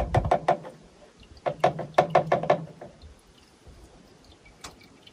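Hand-operated oil transfer pump clacking as it is worked, in two quick runs of about five clicks a second with a short pause between, while it pushes gear oil into a final drive.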